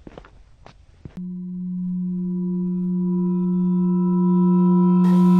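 A few footsteps on a hard floor, then about a second in a steady low synthesized drone starts suddenly and grows steadily louder, a suspense music cue. A brighter, shimmering upper layer joins it near the end.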